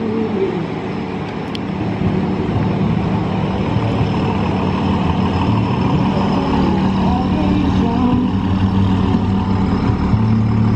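Large lifted pickup truck passing slowly and close by, its engine running with a steady low note that grows louder about two seconds in as the truck comes alongside.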